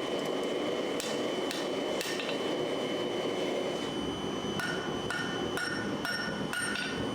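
A hand hammer strikes steel on an anvil about two blows a second, each with a short metallic ring: three blows around a second in, then a longer run of about six in the second half. A steady rushing noise runs underneath.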